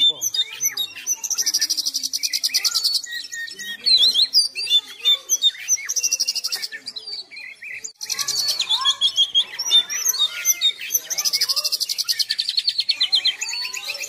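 Oriental magpie-robin (kacer) singing continuously: a varied run of clear whistled notes broken by long, fast rattling trills, with a short lull about halfway through.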